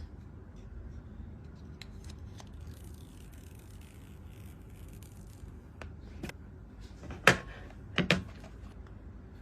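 Unboxing handling sounds from an iPhone box and its packaging: light rustling and scraping, then two sharp taps or clicks about seven and eight seconds in.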